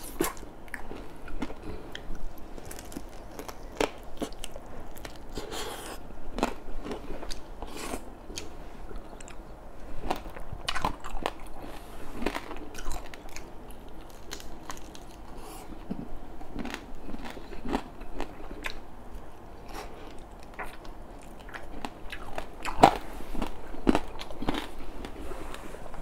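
Chewing and crunching of crispy fried red tilapia: irregular crisp crunches between softer chewing, with one sharper crunch near the end.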